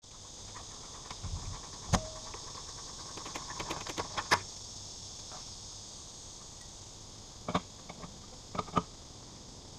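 A steady high insect chorus, with a few scattered light clicks and knocks from handling the steel tongue jack of a boat trailer. The sharpest click comes about two seconds in, and a small cluster follows around four seconds.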